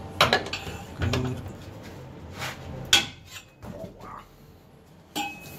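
Steel tools clanking and knocking against metal: a few separate sharp hits, the loudest just after the start and about three seconds in, with another near the end.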